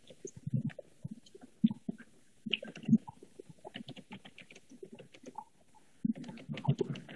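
Irregular soft clicks and thumps of someone typing on a computer keyboard, picked up through a video-call microphone.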